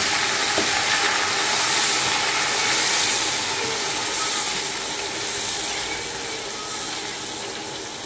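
Scotch bonnet pepper and onions frying in hot oil, a steady loud sizzling hiss that slowly dies down.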